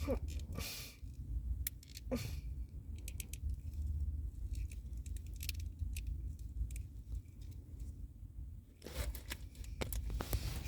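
Handling noise: scattered small clicks and short rustles as a plastic action figure is moved into a pose, over a low rumble on the microphone.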